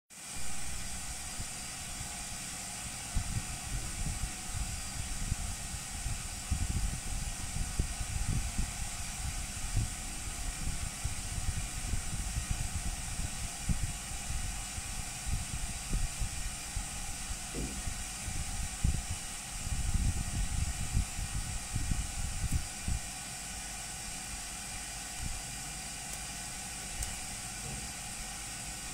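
Steady background hiss with irregular low rumbles and bumps from handling, between about 3 and 23 seconds in.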